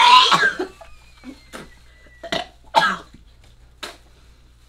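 A person coughing and gagging, as if about to retch: one loud, harsh burst at the start, then four shorter ones spread over the next few seconds.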